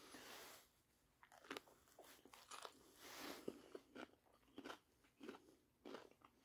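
Faint, irregular crunches of a person chewing a mouthful of wrap filled with crunchy, lightly blanched potato and jalapeño.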